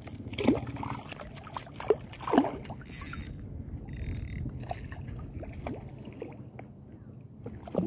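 Shallow seawater sloshing and lapping around a wading angler's legs, with scattered small splashes as a hooked needlefish is brought in at the surface.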